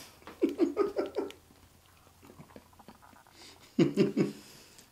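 Two short runs of a person's laughter, about half a second in and again near the end, each a quick string of four or five chuckles.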